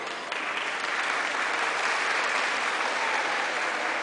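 Audience applauding, swelling about a second in and easing off slightly near the end, after a sharp single hit right at the start.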